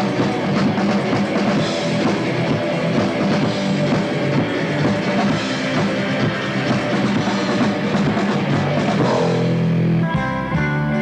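Rock band playing live: drum kit and electric guitars in a driving instrumental passage. About ten seconds in, the drums stop and ringing guitar chords carry on alone.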